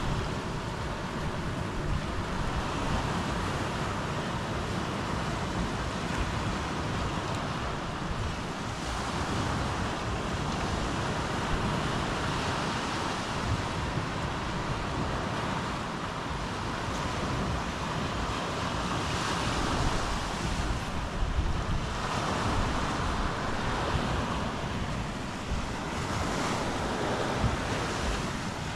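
Sea surf washing on the shore in slow swells, with wind buffeting the microphone.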